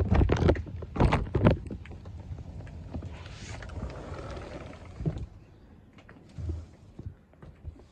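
Knocks and bumps from a handheld phone camera being moved and carried, loudest in the first second and a half, with a stretch of hiss about three seconds in.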